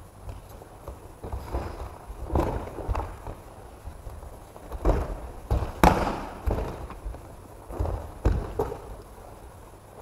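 Irregular thuds and slaps of bodies hitting tatami mats as aikido practitioners are thrown and take breakfalls, with footsteps on the mats between. The loudest impact comes about six seconds in.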